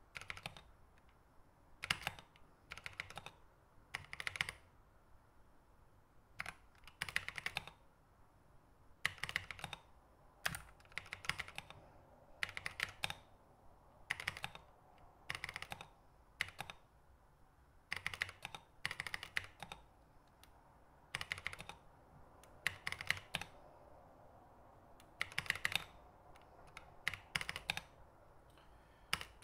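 Mechanical key switches on a small numeric-pad keyboard clicking in short groups of quick taps, a group every second or two, as letters are keyed one at a time in Morse code.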